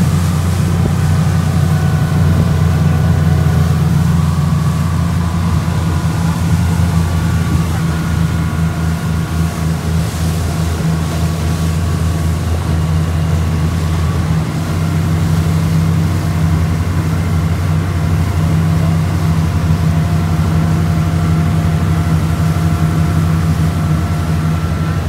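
Speedboat engines running steadily at speed, a deep, even drone, with water rushing and spraying along the hull.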